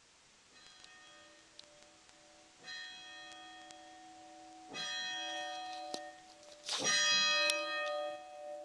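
Church bell striking, one ringing stroke about every two seconds, getting louder with each stroke; the bell rings every half hour.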